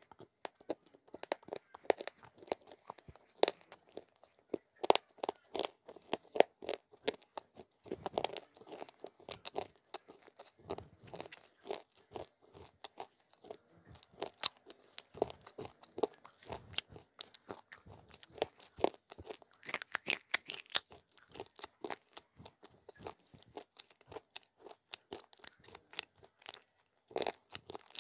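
Close-miked chewing of baked clay (Punjabi mitti) cookies: a steady, irregular run of short dry crunches.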